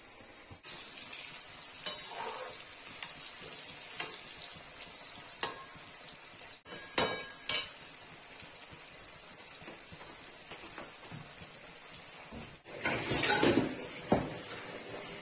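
Cubed turnips sizzling in hot oil in an aluminium frying pan, a steady hiss, with a few sharp clinks of a metal spatula against the pan. About two-thirds of the way through there is a louder, longer burst of stirring and scraping in the pan.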